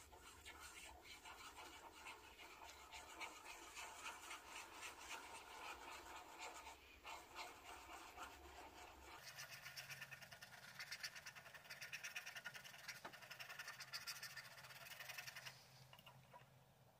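Faint scratching of a pen nib on paper in many quick short strokes, as rays are drawn out from ink blots. The scratching stops near the end.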